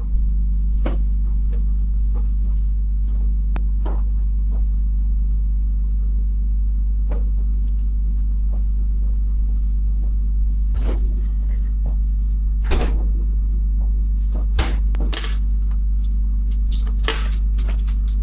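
Steady low drone of a car running, heard inside the cabin, with a few light clicks and knocks scattered through it.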